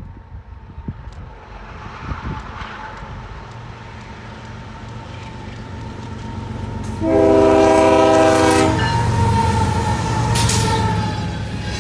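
BNSF GE ES44AC diesel locomotive leading a loaded coal train, its engine and wheel rumble building as it approaches. About seven seconds in it sounds one chord horn blast lasting just under two seconds, with a brief clank of rolling equipment a little later.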